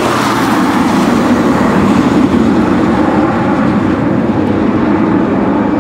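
Boeing 727's three tail-mounted JT8D turbofan engines at climb power as the jet climbs away, a loud, steady, deep rush of noise.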